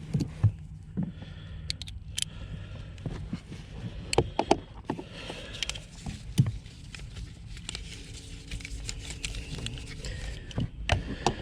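Scattered clicks, taps and scrapes of hand tools and plastic parts being handled under a car's dashboard, over a low steady hum.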